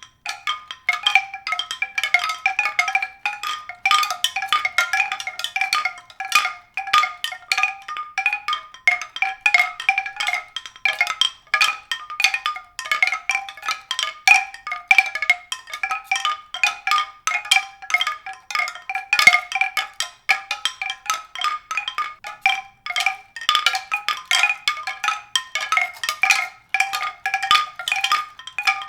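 Music of quick, continuous struck mallet-percussion notes, several a second, all high-pitched with nothing in the bass.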